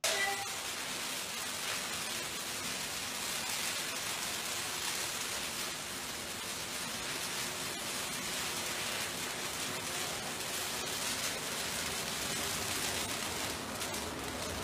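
Christmas tree fire burning: a steady rushing noise with faint crackles.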